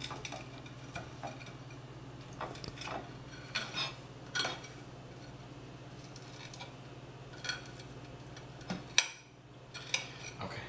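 Table knife scraping and clinking against a ceramic plate while slicing breaded chicken tenderloins, in scattered strokes, with the sharpest clink about nine seconds in. A steady low hum runs underneath.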